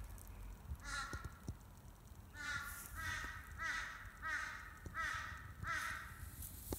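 A bird calling: one call about a second in, then a run of about six calls spaced under a second apart, each a short arching cry.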